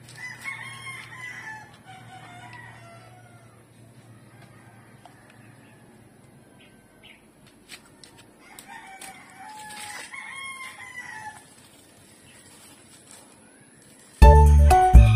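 A rooster crows twice, several seconds apart. Near the end, loud jingly background music starts abruptly.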